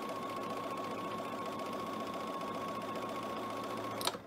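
Bernina sewing machine stitching steadily through cotton patchwork at an even speed, with a constant whine over the stitch rhythm. It stops with a sharp click near the end.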